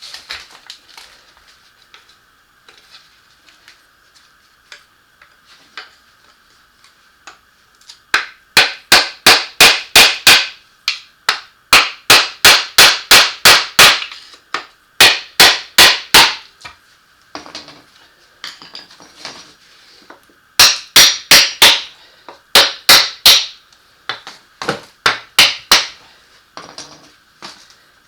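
Hammer blows on metal during disassembly of an NP247 transfer case: a few light taps, then from about eight seconds in, bursts of quick, ringing strikes about four a second, several in a row, with short pauses between.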